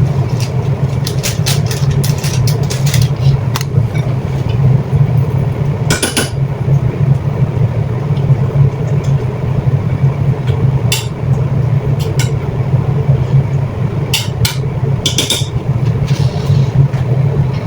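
A steady low hum, like a kitchen appliance or fan running, under scattered clinks and knocks of a utensil against a cooking pan as squid adobo cooks in soy sauce.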